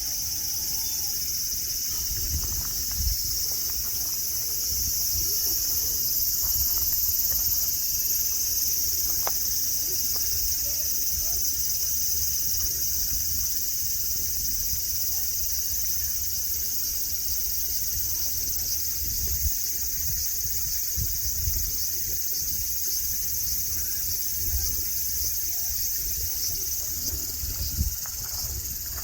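Cicadas singing in a steady, high-pitched chorus, with a low rumble underneath.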